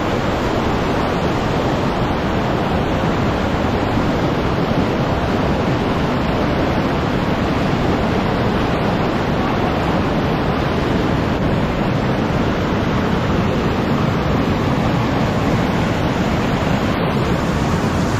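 Fast mountain stream rushing over rocks in white-water rapids close by: a loud, steady rush of water that does not let up.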